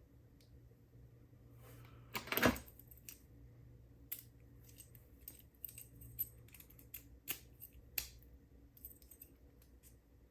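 Small metal clicks and clinks of a key and tools working in a padlock, with a louder clatter about two seconds in, then scattered sharp clicks.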